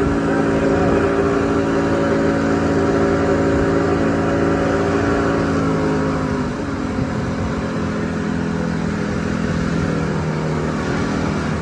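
Motorboat engine running under way with a steady hum, its pitch and level dropping a little about six seconds in.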